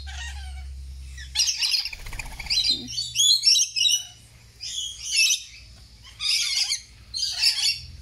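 Rainbow lorikeets screeching and chattering in about five high-pitched bursts, roughly a second apart. A low hum runs under the first two seconds.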